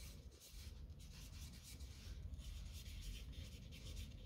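Felt-tip marker writing on paper: a faint run of short, irregular rubbing strokes as words are written out by hand.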